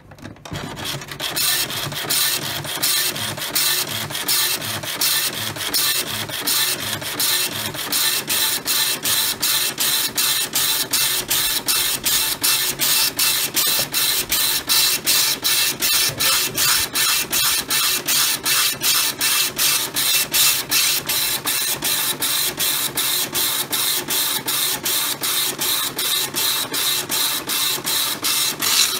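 Epson LX-350 9-pin dot-matrix printer printing a test page with its freshly cleaned printhead. The head chatters across the paper line after line in a steady, even rhythm of about three passes a second.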